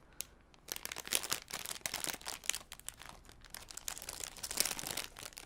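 Christmas ornament wrappers being torn open and crinkled by hand: a dense, irregular run of crackles and rustles.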